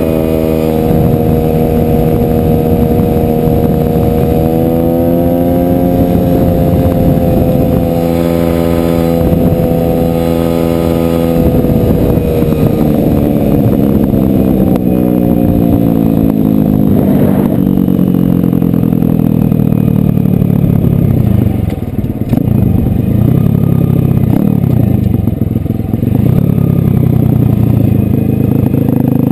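Gio X33 140 cc pit bike's single-cylinder four-stroke engine held at high, steady revs at speed, then falling steadily in pitch as the bike slows. Near the end the revs dip and rise a few times.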